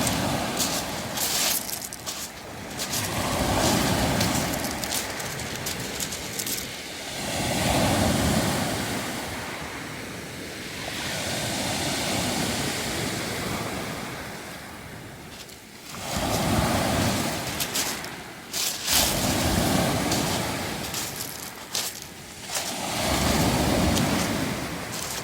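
Waves washing in and out over a beach of round pebbles, each swell coming roughly every four seconds, with the stones clattering and rattling as the water moves them.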